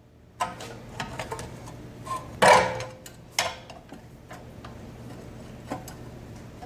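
Metal clicks and clinks of pry bars levering against a brake caliper to compress the piston back, with a louder scraping clunk about two and a half seconds in.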